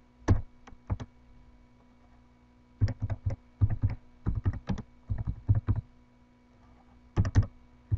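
Computer keyboard typing: a few separate keystrokes near the start, then quick runs of keystrokes through the middle and again near the end.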